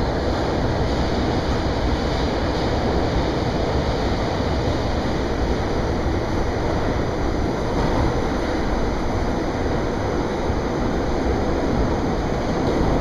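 Steady rumble and rushing noise of a New York City subway train running, heard from inside the car.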